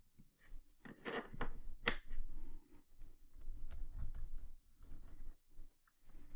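Allen wrench turning small M3 screws into bearing clamps on an aluminium plate: irregular small clicks and scrapes of metal on metal, with hand-handling rustle and soft bumps.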